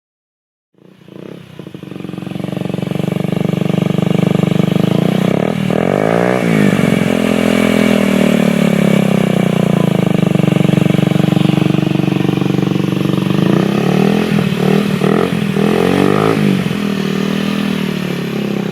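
Honda Ruckus scooter's 49cc four-stroke single running through a Two Brothers Racing aftermarket exhaust, starting up about a second in, then revving, its pitch rising and falling several times.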